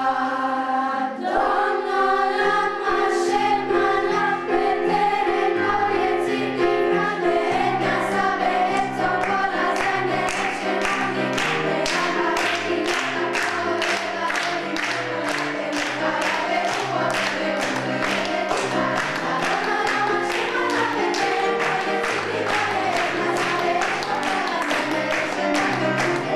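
Children's choir singing over instrumental accompaniment with a low stepping bass line. From about ten seconds in, audience members clap along in time, a steady beat of hand claps under the song.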